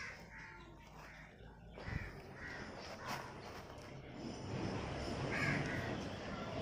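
Crows cawing several times, with a couple of light knocks about two and three seconds in.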